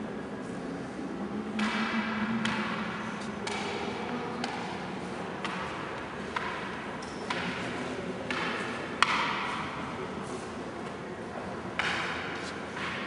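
Footsteps on a hard floor, about one step a second, over a low steady hum of the hall, with one sharp click about nine seconds in.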